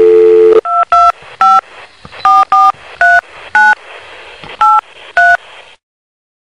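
Telephone dial tone that cuts off about half a second in, followed by nine touch-tone keypad beeps dialled at an uneven pace, with faint line hiss between them.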